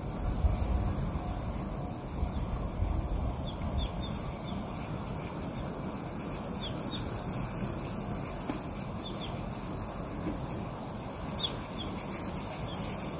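Wind buffeting the microphone in low gusts over the first four seconds, over a steady rush of outdoor noise, with brief high bird chirps now and then.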